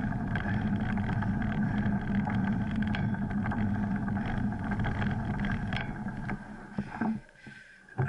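Steady rumble and rattle of a mountain bike rolling over a gravel dirt road, with many small clicks from stones and the bike, picked up through a bike-mounted action camera along with wind on its microphone. It dies down about seven seconds in.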